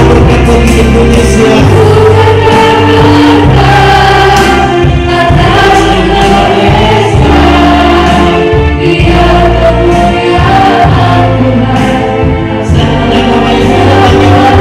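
Christian praise-and-worship song: voices singing together over instrumental accompaniment with a steady bass line.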